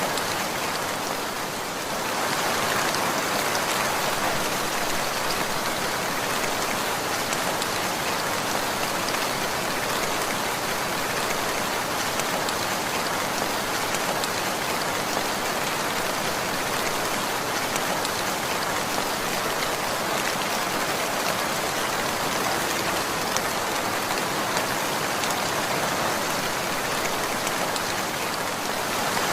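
Steady rainfall, an even dense patter of drops on a surface, dipping briefly in loudness about a second in.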